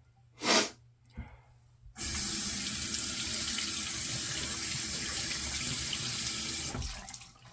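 Sink tap running steadily for about five seconds, turned on abruptly about two seconds in and shut off near the end. A brief hiss comes about half a second in.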